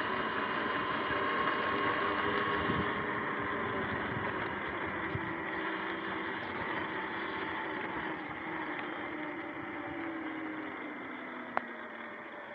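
Sur-Ron X electric dirt bike riding over wet pavement: a whine from its electric motor and drivetrain over a wash of wind and tyre hiss. The whine drops in pitch as the bike slows near the end, and there is a single sharp click shortly before the end.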